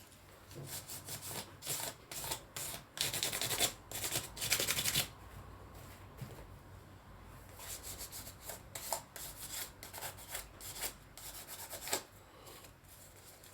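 Very fine P2500-grit sandpaper rubbed by hand over a painted fairy-garden house, a run of short scratchy strokes, loudest a few seconds in, lightly sanding off loose flakes of paint.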